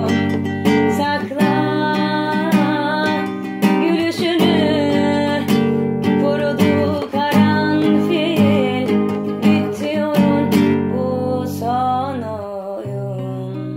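Song outro: acoustic guitar strumming chords, with a wavering melody line above it; near the end the music thins out to a held low chord.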